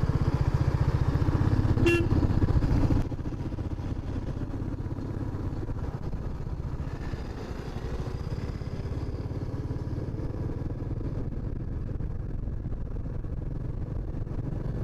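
Motorcycle engine running with an even, rapid exhaust pulse. The sound drops in level about three seconds in and carries on more quietly, with a brief sharp sound just before the drop.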